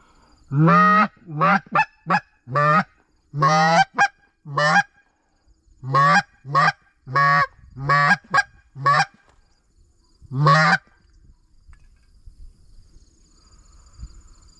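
Goose call blown by hand: a run of about a dozen loud honks and short clucks, ending about ten seconds in, used to call passing geese into the decoys.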